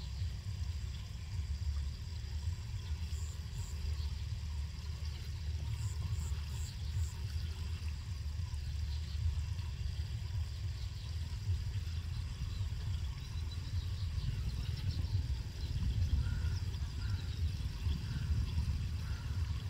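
Wind rumbling on the microphone outdoors, with a few faint, short high chirps about three seconds in and again around six to seven seconds in.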